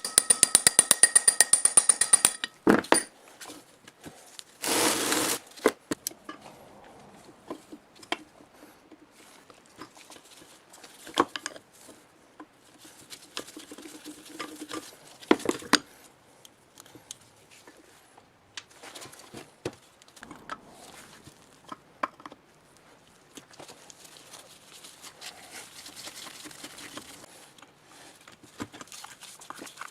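Workshop handling of tools and metal parts. A rapid run of clicks lasts about two seconds, a short hiss comes about five seconds in, and scattered clicks and knocks follow.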